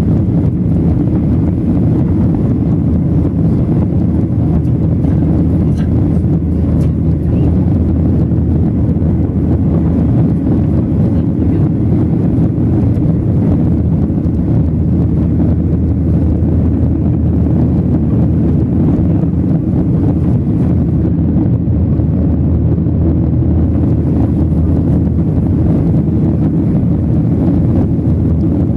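Steady, loud cabin noise of a Boeing 737-800 in its climb after takeoff: the deep, even rumble of its CFM56-7B turbofan engines and the rushing airflow, heard from a seat over the wing.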